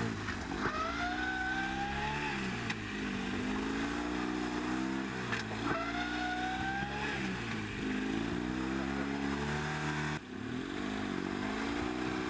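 A VAZ Oka's small two-cylinder engine revving up and down over and over, as the front-wheel-drive car struggles for grip on clay. A thin high squeal rises briefly twice over the engine.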